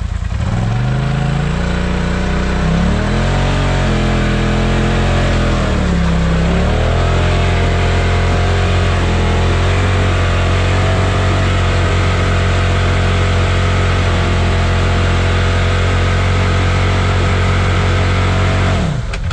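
Off-road vehicle engine revving: the revs climb over the first few seconds, dip about six seconds in, then hold steady and high before cutting off abruptly near the end.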